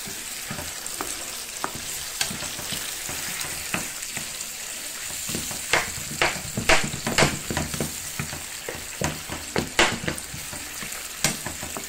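Tomato sauce sizzling in a frying pan, stirred with a wooden spatula that scrapes and knocks against the pan. The sizzle is steady; the knocks of the spatula come thickest in the second half.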